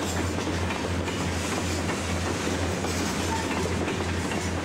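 Union Pacific diesel freight locomotives passing with their train, the engines giving a low throb that pulses about twice a second over a steady rumble.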